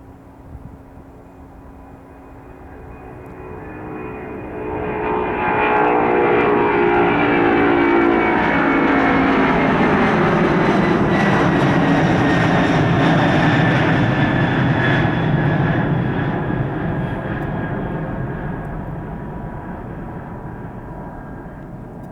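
Boeing 767-200 freighter's twin jet engines at takeoff power as it goes past: the noise builds over a few seconds, stays loud for about ten seconds with tones gliding downward, then slowly fades.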